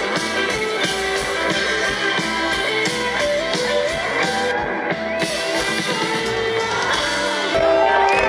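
Live rock band playing through a big PA, heard from within the crowd: guitar and drums. About seven and a half seconds in, the music cuts abruptly to a louder passage of a different song.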